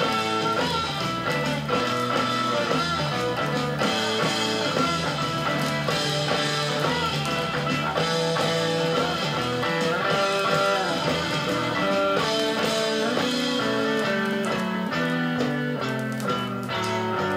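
Psychedelic rock played from a vinyl LP on a turntable, with electric guitar to the fore in a full band.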